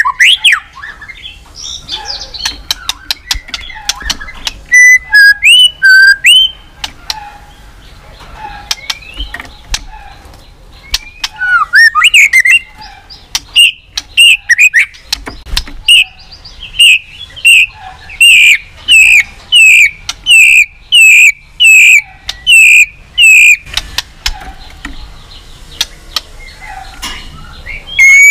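White-rumped shama singing a loud song of clear, varied whistles. About halfway through it settles into repeating one short phrase over and over, a little under twice a second, for some ten seconds.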